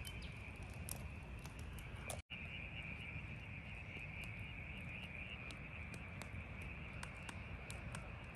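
Wood campfire crackling with scattered sharp pops over a low rumble, with a steady high-pitched animal chorus of night insects running underneath. The sound cuts out for an instant just after two seconds.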